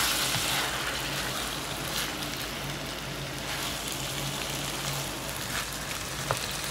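Tomatoes, onions and green chillies sizzling in hot oil in a wok, stirred with a wooden spatula that gives a few faint scrapes. The sizzle is strongest at the start and eases off a little.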